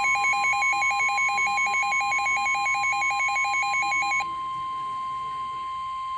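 Emergency alert tones: a rapidly pulsing electronic tone over a steady tone of about 1 kHz, the weather radio's 1050 Hz warning alarm. The pulsing cuts off about four seconds in, leaving the steady alarm tone alone.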